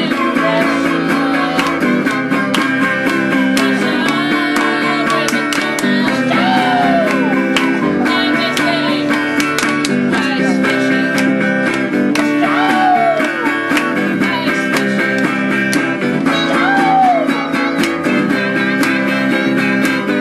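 Guitar music: a guitar strumming chords steadily through a song.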